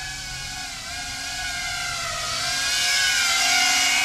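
FPV quadcopter drone's motors whining, the pitch bending up and down with throttle changes, growing louder toward a peak about three and a half seconds in.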